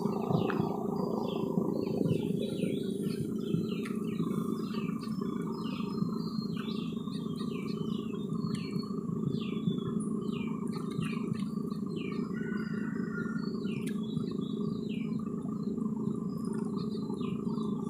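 Many small birds chirping in rapid, overlapping short calls, over a steady low hum.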